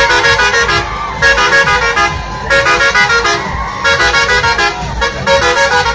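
Tourist bus musical air horn playing a tune in about five quick phrases of stepped notes, each roughly a second long with short gaps between.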